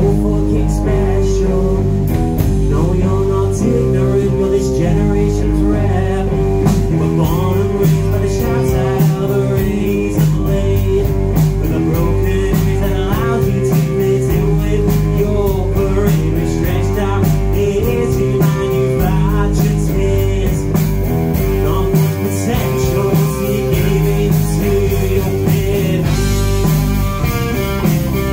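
Live rock band playing loud and steady, with electric guitar, bass guitar and a drum kit with cymbals.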